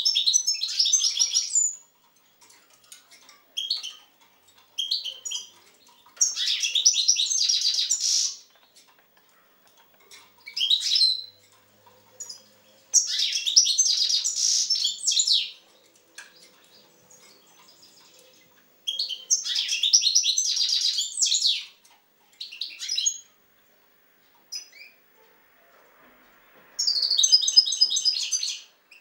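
European goldfinch singing: about seven phrases of fast, high twittering, each from under a second to a few seconds long, with short pauses between them.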